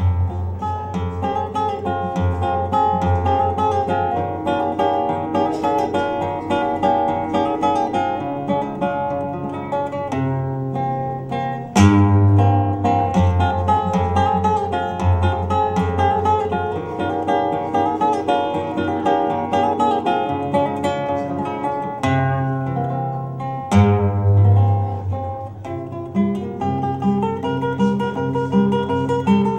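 Flamenco guitar played solo: fast picked melodic runs over ringing bass notes, broken twice by a sudden loud strummed chord, about twelve seconds in and again about twelve seconds later.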